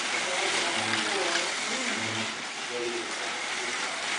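Several slot cars running laps on a multi-lane track, their small electric motors and tyres making a steady whirring hiss. Quiet voices talk underneath.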